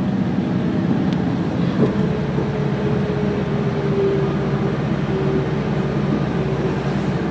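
Large mining haul truck's diesel engine and drivetrain running steadily while driving, heard from inside the cab as a constant low drone. A faint whine holds for a few seconds in the middle.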